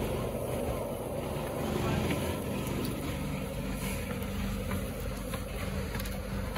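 An engine running steadily at a constant speed, with a few light knocks of boots on wooden planks.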